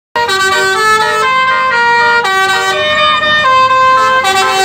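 Indonesian 'telolet' basuri multi-tone bus horn playing a tune: a run of held notes stepping up and down in pitch, several sounding together, starting abruptly just after the start.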